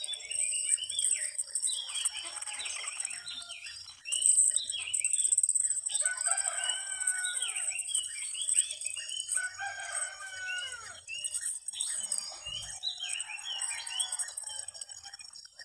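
Roosters crowing amid many small birds chirping, over a steady high-pitched buzz, with a brief low thump near the end.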